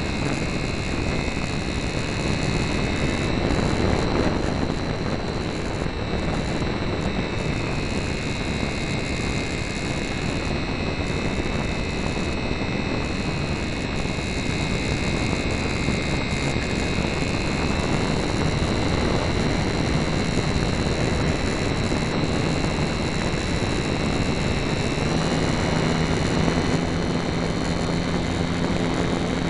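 HobbyZone Super Cub RC airplane in flight, heard from its onboard camera: the electric motor's steady high whine and the propeller buzz over rushing air. A lower steady hum joins about 25 seconds in.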